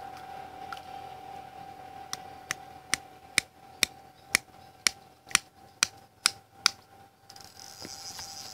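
A fishing reel's clicker ticking about twice a second, eleven or so clicks over four to five seconds, as line is drawn off the reel: the sign of a fish taking the bait and running with it.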